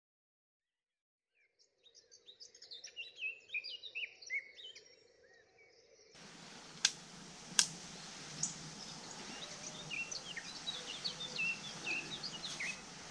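After a second or two of silence, birds chirping and twittering fade in. About six seconds in, a steady outdoor hiss comes in, with two sharp clicks soon after and more scattered bird chirps.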